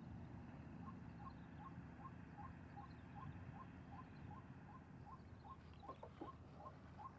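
Faint, quick, rhythmic chirping, about three chirps a second, over a low steady rumble, with a couple of soft knocks about six seconds in.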